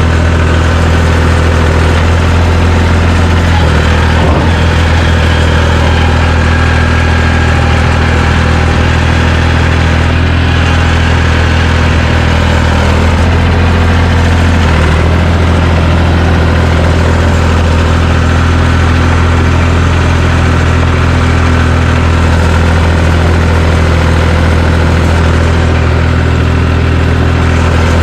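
John Deere 350 crawler dozer engine running steadily at a constant speed, its low engine note shifting slightly about four seconds in and again about fifteen seconds in.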